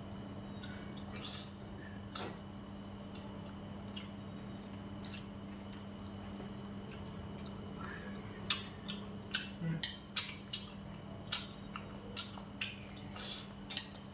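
A metal spoon and chopsticks clinking against a ceramic rice bowl: scattered sharp clicks, sparse at first and coming more often in the second half, over a steady low hum.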